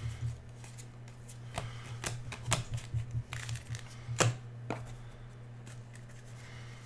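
Football trading cards being flipped through by hand, the card edges slapping and sliding in a run of irregular sharp clicks over a steady low hum.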